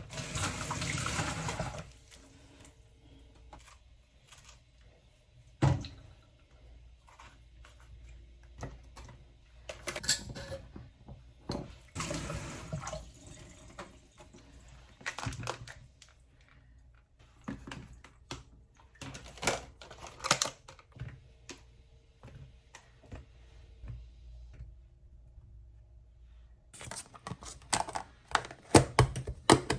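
Kitchen food-prep sounds: short bursts of running water and scattered clicks and knocks of containers and utensils, ending in a quick run of clicks and rattles.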